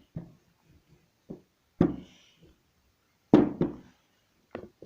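A series of about six sharp knocks and taps on the work surface as dough is rolled out with a rolling pin, loudest around two and three and a half seconds in.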